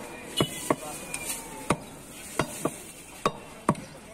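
Butcher's cleaver chopping beef on a round wooden chopping block: about seven sharp chops at an uneven pace.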